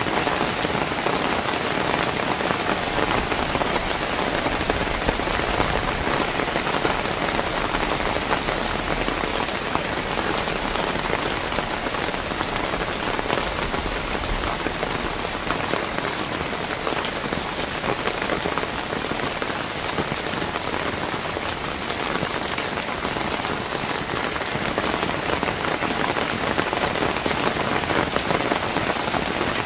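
Steady rain falling on a wet paved lane and the roadside greenery, an even rush of sound without breaks or changes.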